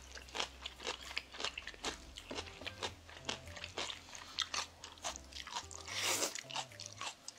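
Close-up eating sounds of black-bean-sauce instant noodles: repeated wet chewing and smacking clicks, with a loud slurp of noodles about six seconds in.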